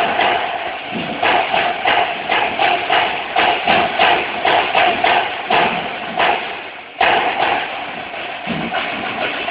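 A line of snare drums played together with sticks in fast rhythmic patterns, with sharp accented strokes standing out every fraction of a second. The playing drops back briefly and comes in loud again about seven seconds in.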